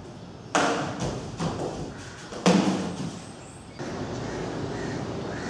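Heavy thuds and knocks of actors moving and striking on a rehearsal stage: two loud thumps about two seconds apart with lighter knocks between, each with a short ring of room echo. Near the end these give way to a steady background hiss.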